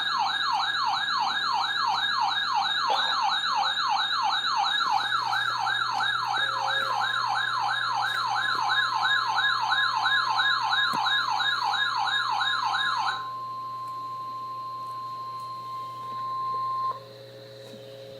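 A weather alert radio's siren sounding for a new warning: a rapid warbling wail, about three rising-and-falling sweeps a second, that stops abruptly about thirteen seconds in. Under it, from about seven seconds in, the steady NOAA Weather Radio warning alarm tone sounds and runs on a few seconds after the siren stops.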